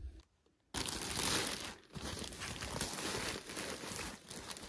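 Plastic bag and tissue-paper wrapping crinkling and rustling as a handbag is pulled out of its packaging. The crinkling starts after a brief silent gap just under a second in.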